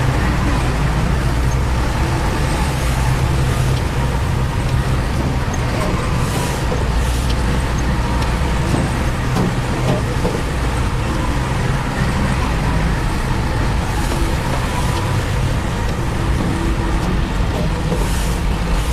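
Heavy diesel engine of construction machinery running steadily, a continuous low rumble with no pauses.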